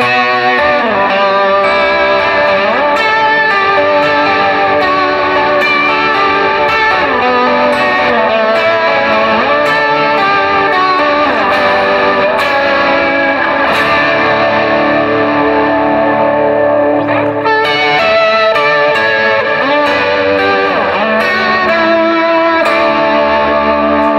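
Electric guitar, a Fender Telecaster Thinline, played through a Valeton GP-200 multi-effects unit on an AC30-style amp tone with drive, modulation, delay and reverb all switched on at once. Sustained chords and single-note lines ring into one another without a break, some notes gliding in pitch.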